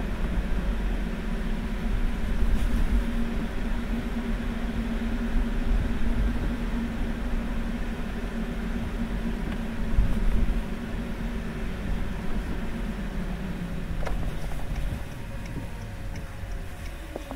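Car driving on wet, sleety streets: steady engine and road noise with tyre hiss, a constant low hum fading out about three-quarters of the way through as the car eases off and slows.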